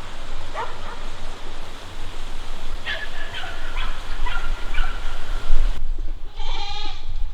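Goats bleating: several short calls, then a longer bleat near the end, over a steady low rumble.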